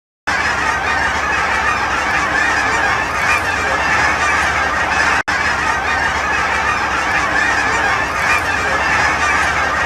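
A large flock of geese honking continuously in a dense chorus of overlapping calls, broken by a brief cut about five seconds in.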